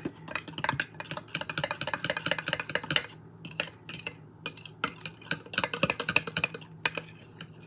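Heavy cream, instant espresso and cocoa powder being stirred briskly with a utensil in a measuring cup: rapid clinking and scraping against the cup, broken by a few short pauses. A steady low hum sits underneath.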